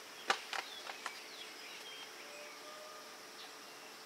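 Steady outdoor buzz of insects with a few thin bird chirps, and three or four light sharp clicks in the first second.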